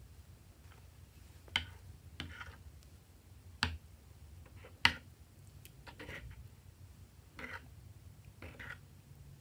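Hands working wet, glossy slime in a glass dish: a handful of sticky squishes and sharp clicks, spaced a second or two apart, over a faint low hum.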